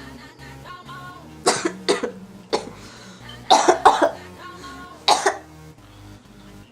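People with a cold coughing in sudden short fits: about a second and a half in, again around three and a half to four seconds, and once more about five seconds in. Quiet background music plays underneath.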